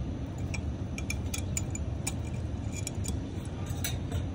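Small, irregular dry clicks and crackles as fingers crumble soil from a plant's root ball and crumbs drop onto a plastic tray, over a steady low rumble.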